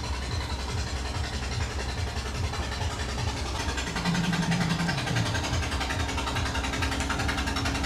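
Steady low rumble of an idling engine, with a faint steady hum joining about three and a half seconds in.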